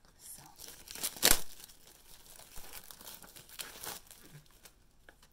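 Plastic wrapping crinkling and tearing as it is pulled off a packaged artist's canvas, loudest a little over a second in and dying away after about four seconds.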